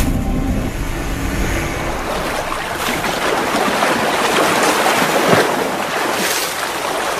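Water splashing and churning as people thrash about in open water, with wind rushing over the microphone.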